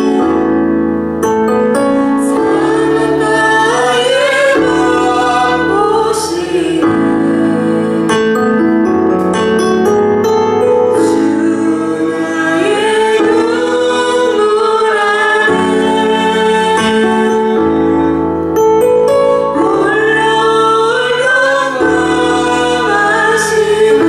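Worship song sung by a praise team over keyboard or piano accompaniment, the voices carrying a flowing melody over held chords.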